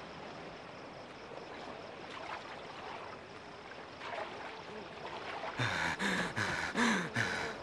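Faint water lapping at the lakeshore. About two seconds from the end, a man growls in a run of harsh, gasping breaths, about three a second.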